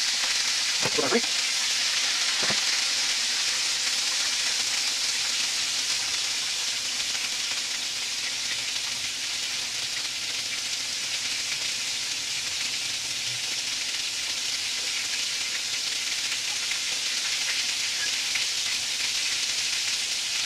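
Two breaded chicken fried steaks frying in hot oil in a cast-iron skillet: a steady sizzle, with a couple of brief clicks in the first few seconds.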